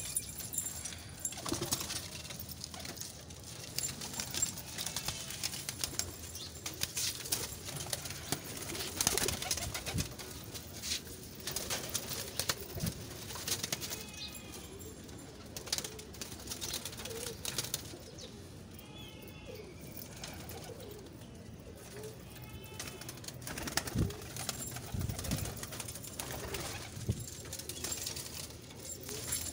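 Domestic pigeons cooing, with scattered clicks and rustling and a few short high chirps.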